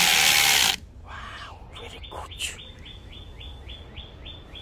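Cordless drill running with its bit grinding against a steel vise jaw: a loud, harsh rasp that cuts off under a second in. Then a bird gives a run of quick, evenly spaced high chirps, about five a second.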